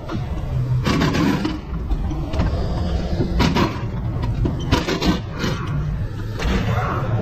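Car repair workshop background: a steady low rumble with scattered short clicks and knocks from tools and parts being handled.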